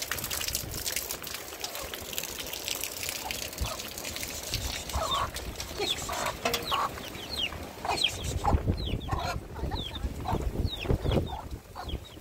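Hens clucking and young chickens peeping in quick, repeated calls, starting a few seconds in. Rain hisses steadily at the start.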